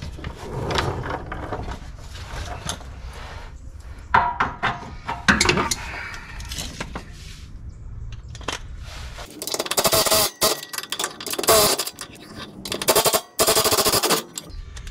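Light metallic clinks and scrapes of hand tools, then a ratchet wrench clicking rapidly in four quick runs over the last five seconds as a bolt under the car is worked loose.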